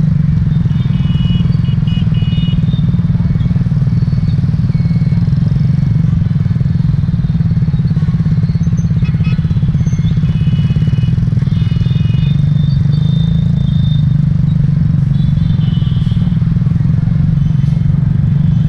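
Yamaha Taurus motorbike's single-cylinder four-stroke engine running steadily under the rider, amid the hum of surrounding scooter traffic. Several short high-pitched beeps of motorbike horns sound from the traffic, first about a second in and again from about nine seconds on.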